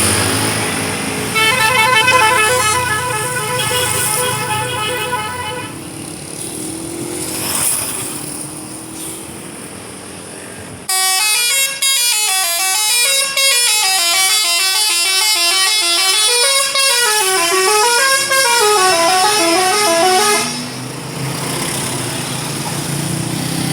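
Tour bus 'telolet' multi-tone musical horn. It sounds a short run of pulsing chimed notes for about four seconds, then after a lull of engine and street noise plays a longer tune of stepping notes rising and falling for about ten seconds.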